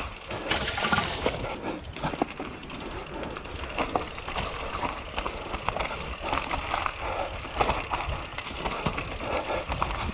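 Enduro mountain bike rolling down a dirt singletrack, its tyres crunching over soil, twigs and dry grass, with a constant clatter of small knocks and rattles from the bike.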